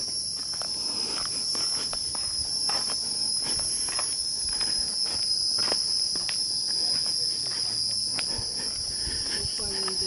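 Steady chorus of insects in the trees, a shrill high-pitched whine held unbroken at two pitches.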